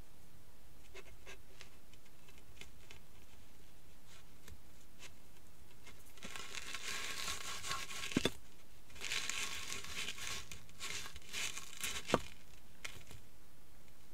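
Crushed Cheetos crumbs crunching and crackling as they are ground underfoot: light scattered crackles at first, then two longer bouts of dense crunching about six and nine seconds in, each ending with a sharp click.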